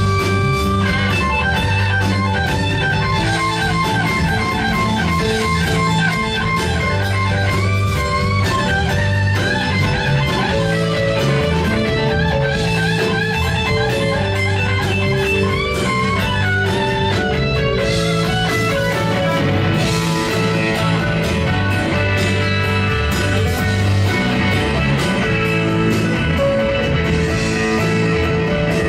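Live blues-rock band: an electric guitar plays a lead line full of bent notes over bass guitar and drums.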